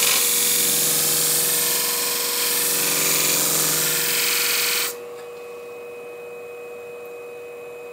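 Scissor blade being honed on the spinning flat plate of a Scimech Flathone sharpening machine, a steady grinding hiss over the motor's hum, as metal is taken off the edge just behind the tip. About five seconds in the blade is lifted off and the hiss cuts off suddenly, leaving only the machine's steady hum.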